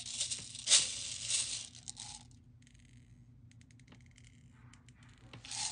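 Small multicolored pearl beads (mermaid beads) rattling in a clear jar as they are shaken out into a silicone mold, loudest just under a second in, followed by a run of light clicks as a few beads drop and settle.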